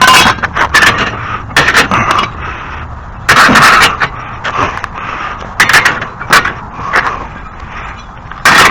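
Lawn mower being pulled and wheeled across a hard floor: a run of loud, irregular knocks and clatter, with scraping and rolling noise between them.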